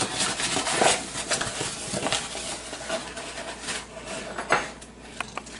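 A measuring cup scooping flour from a paper flour bag: crinkling, rustling paper with scraping and small knocks, busiest in the first half.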